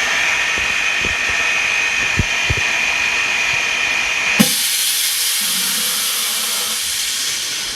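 An LCD vacuum-laminating and bubble-removing machine running: a steady whine with scattered clicks, then a knock about four seconds in, after which the sound turns to a loud hiss of air.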